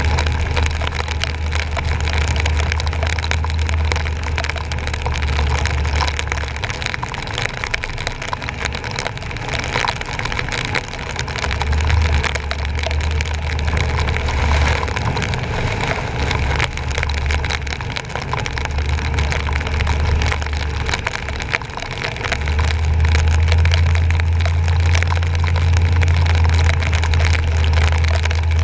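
Truck driving on rain-flooded streets, heard from a bumper-mounted camera: a continuous hiss of water and wet-road noise under a low rumble that comes and goes, then holds steady and gets a little louder from about two-thirds of the way in.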